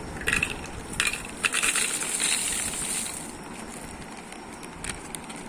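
Whole dried red chillies poured from a plastic packet into a plastic jar: a dry rattle of chillies landing, with the packet crinkling, mostly over the first three seconds and then tailing off.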